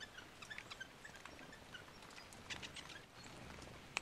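Quiet wet-forest ambience in light rain: scattered soft, short bird chip notes and small ticks of dripping water, with one sharp click near the end.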